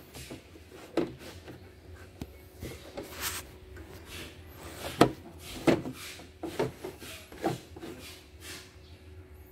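Hands handling an embroidery machine's hoop bracket and a piece of fabric: scattered knocks and clicks with rustling, the sharpest knock about five seconds in.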